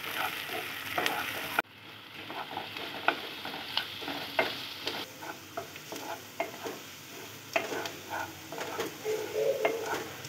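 Chopped onions frying in oil in a nonstick pan, stirred with a wooden spatula: irregular scrapes and taps of the spatula against the pan over a steady sizzle. The sizzle drops suddenly about a second and a half in.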